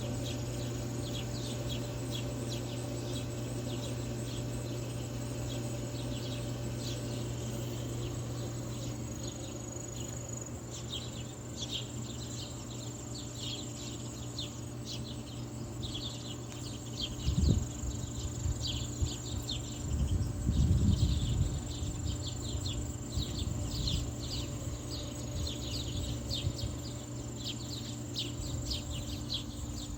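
Backyard birds chirping in many short calls over a steady high insect trill, with a low steady hum underneath. A little past halfway there are two brief low rumbles, the loudest moments.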